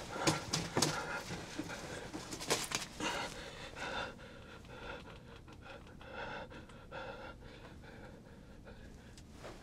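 A man panting heavily, in a run of breathy strokes that fade towards the end, with a few sharp clicks and rustles near the start.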